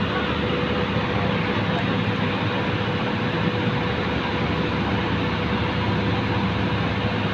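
Steady drone of heavy diesel machinery running without a break, with a low hum and a faint constant tone.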